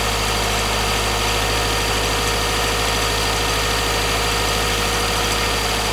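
Subaru Forester's flat-four boxer engine held at about 1500 rpm in drive, running steadily with a light rattle (cascabeleo). The rattle shows up on regular gasoline and not on premium, so the mechanic all but confirms the fuel is the cause.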